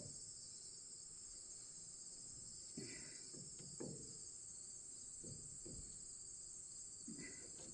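Steady high-pitched insect chorus, with a few faint knocks and rattles from the roller chain and its link plates being handled.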